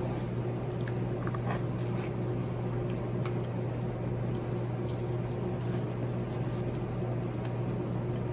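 Wet squishing of a sea bream's guts being worked loose and pulled out by hand, with a few faint small clicks, over a steady low hum.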